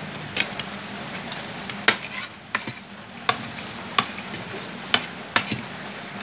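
Forks and spoons clinking and scraping against plastic bowls as people eat, a sharp click every second or so over a steady hiss.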